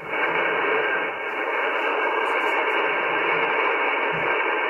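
Yaesu FT-710 HF transceiver playing 40-metre band noise through its loudspeaker with no signal tuned in: a steady static hiss with no treble, the top cut away by the receiver's single-sideband filter.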